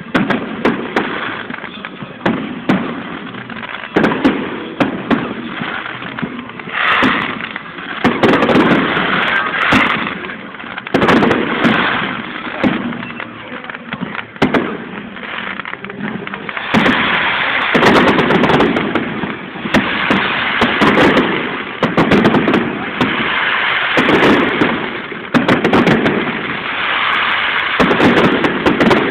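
Aerial fireworks display: a dense run of bangs and crackling, nearly without pause, growing heavier about halfway through.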